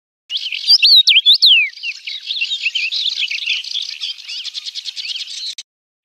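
A finch singing: a few loud slurred whistles, then a rapid run of high warbling twitters that cuts off abruptly near the end.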